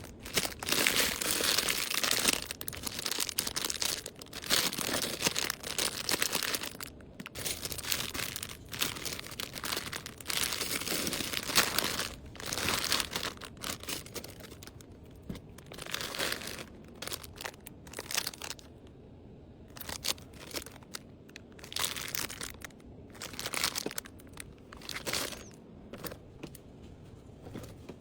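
Packaging being crinkled and rustled by hand in irregular bursts, busy in the first half and more scattered later, as items are packed into an order.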